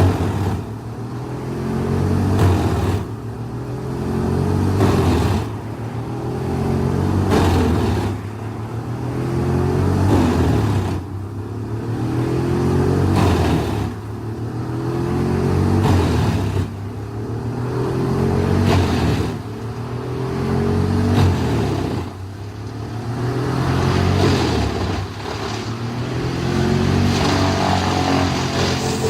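Large industrial wood chipper running under heavy load. Its engine pitch dips and climbs again about every two seconds as wood is fed through, with a crash of wood being chipped at each cycle.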